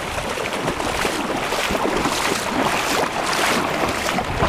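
Shallow sea water splashing as an English springer spaniel puppy wades and bounds through it, over wind on the microphone and small waves at the shore.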